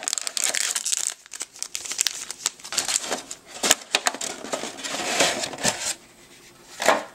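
Foil trading-card booster packs crinkling and a plastic insert tray clicking and rattling as they are handled and lifted out of a metal tin. The handling goes quieter briefly near the end, then one more loud crinkle.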